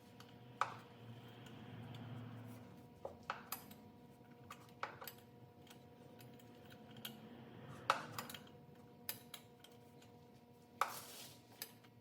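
Hand tools clinking and clanking against metal at irregular intervals, in faint scattered clicks with a short rustle near the end: wrenches being fitted to and handled around the turbo-to-manifold nuts and then set down.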